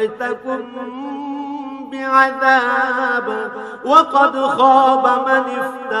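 A man reciting the Qur'an in Arabic, chanting in long, ornamented held notes, with the melody rising about four seconds in.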